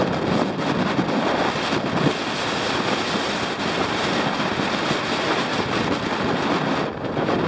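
Steady wind rushing over the microphone, with the wash of sea surf underneath.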